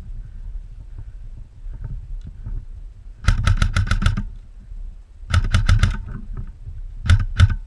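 Airsoft gun firing three rapid bursts of shots, about eight shots a second: the first about three seconds in, the second about five seconds in, and a short one near the end, over a low rumble.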